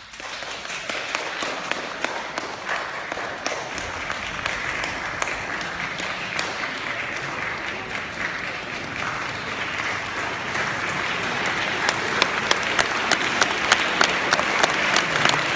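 Concert-hall audience bursting into applause, which starts suddenly out of silence and builds, with sharper individual claps close by growing louder in the last few seconds.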